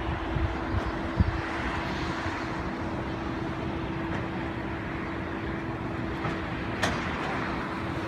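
Hydraulic excavator's diesel engine running steadily with a constant whine, with a thump about a second in and a sharp click near the end.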